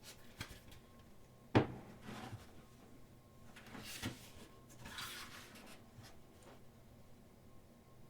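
Thick pages of a photobook being turned and handled: a sharp knock about a second and a half in, then a few rustling, sliding page turns.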